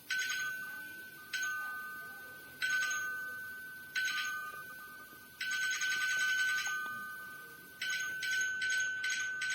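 A high, ringing chime tone struck again and again, about once every second and a half, each ring fading away, then several quick strikes in a row near the end.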